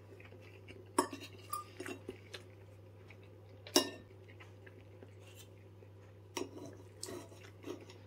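Metal knife and fork clinking and scraping against a ceramic plate while cutting through food. The clinks are scattered: one about a second in, a few light ones after it, the sharpest just before four seconds, and a cluster near the end.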